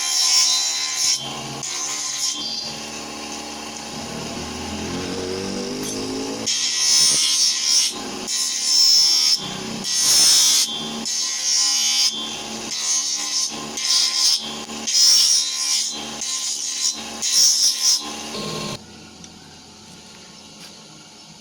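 Repeated rasping strokes of a hand tool scraping on the knife, about one a second, with a brief rising squeal early on and an abrupt stop near the end.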